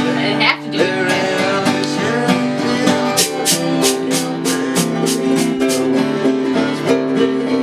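Acoustic guitar played over held chord notes. From about three seconds in it breaks into a quick, even strum of about four strokes a second.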